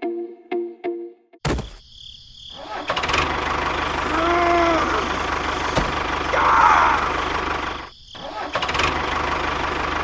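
A few plucked music notes, then a tractor engine starts running steadily from about a second and a half in. It cuts out briefly near the end and starts again.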